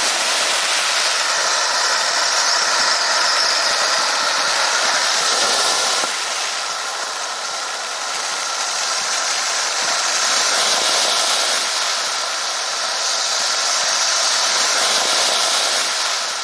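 Winda 'Bucket of Fun' ground fountain firework spraying sparks with a loud, steady hiss, the level dipping slightly partway through and falling away near the end as it burns out.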